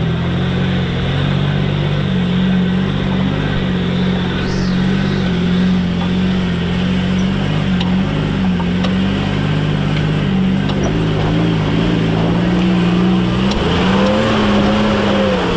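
A vehicle's engine running steadily while driving. About two-thirds of the way through it revs up, rising in pitch, and it starts to ease off near the end.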